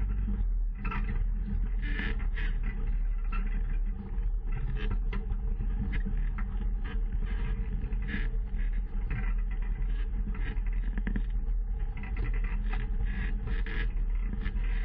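Off-road vehicle engine running under way on a rough dirt trail: a steady low drone, with frequent rattles and clicks from the bouncing ride.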